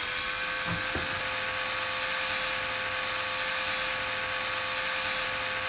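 Small electric motor of a battery-powered rotary heel smoother running with a steady whine.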